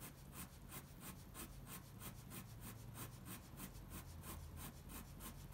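Ink pen scratching quick, even cross-hatching strokes on paper, faint, about five strokes a second.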